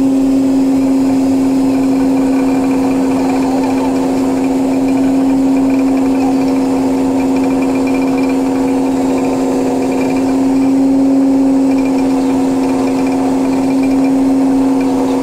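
Fishing boat's machinery running with a steady, unchanging drone and a constant pitched hum.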